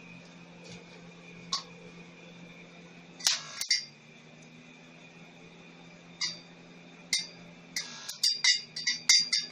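Inverter stick-welding machine humming steadily, with sharp crackles as the electrode strikes the arc a few times, then dense crackling of the arc near the end.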